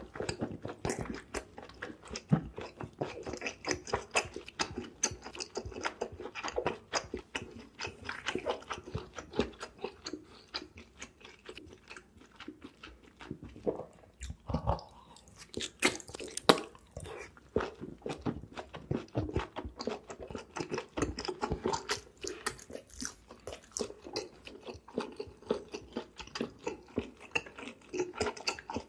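A person chewing food close to the microphone: a continuous run of wet smacking and crunching mouth clicks, with a few louder snaps about halfway through.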